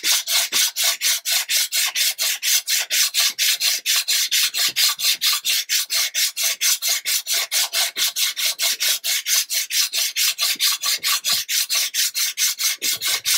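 A sanding block on sandpaper rubbed fast back and forth over the wooden planking of a model ship's hull, in even scraping strokes about four a second. The strokes are fairing the first planking smooth and taking back lumps of glue.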